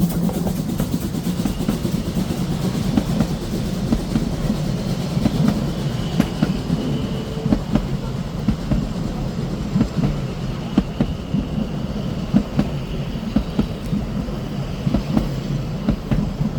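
Narrow-gauge train rolling past, its wheels clicking over the rail joints in an irregular clickety-clack over a steady low rumble.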